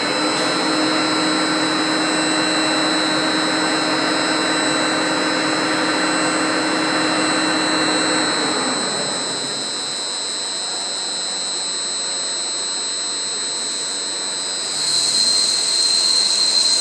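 Large vertical turning machine with its spindle head machining a steel ring on the rotating table under coolant spray: a steady high mechanical whine with hiss. A lower hum of machine tones fades about halfway through, and the high hiss grows louder near the end.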